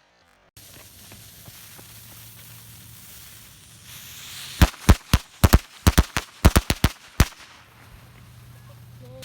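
Firecrackers going off: about ten sharp bangs in quick, uneven succession over two and a half seconds, starting about halfway through, blowing apart a Rubik's cube. Before them there is only a faint steady background.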